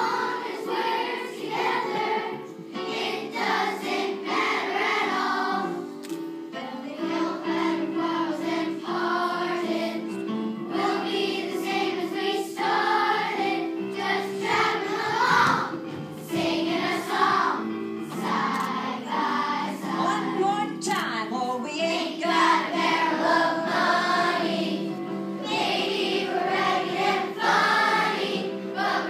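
Children's choir singing a song in unison over a steady instrumental accompaniment.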